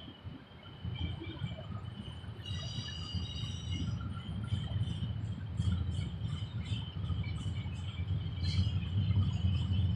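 Double-stack intermodal freight train rolling past, its cars making a low rumble that grows louder, with high chirps and squeals over it.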